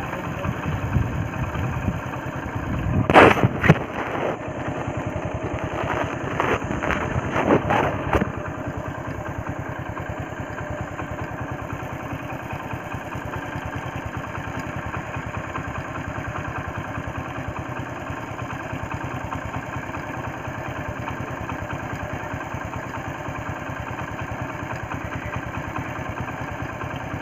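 A vehicle engine idling steadily, with a few short, louder noises about three to four seconds in and again around six to eight seconds in.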